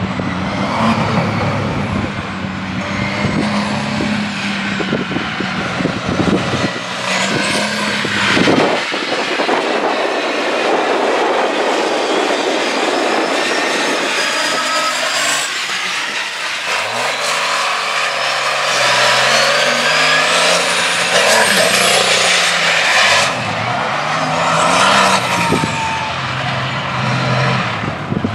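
Diesel-powered monster truck engine revving hard again and again, its pitch rising and falling with each blip of the throttle.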